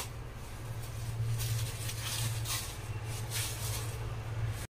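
Paper towels rustling in several soft strokes as hands press them onto raw pork ribs to blot them dry, over a steady low hum.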